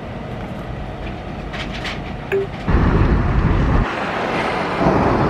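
Steady low rumble, then loud gusts of wind buffeting the microphone that start suddenly a little under three seconds in, followed by a steady rushing hiss.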